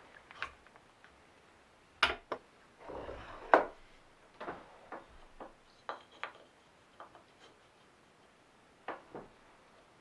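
Irregular light knocks and clicks of wooden parts and hand tools being handled, with a short scraping stretch about three seconds in, just before the loudest knock.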